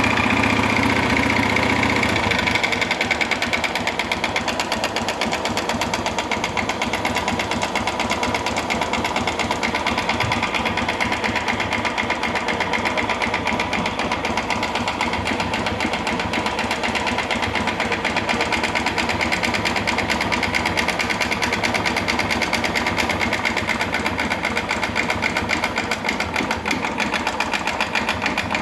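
Honda Fan 125's single-cylinder four-stroke engine running with a loud, rapid, even mechanical clatter; a deeper rumble drops away about two seconds in. The noise comes from a worn cylinder and piston, worn from running short of oil.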